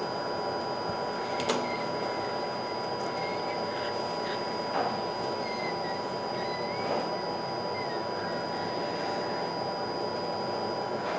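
Hot-air rework station blowing steadily onto the circuit board while a connector is reflowed: a constant airflow hiss with a faint steady high whine. Two small clicks, about one and a half and five seconds in, as metal tweezers touch the parts.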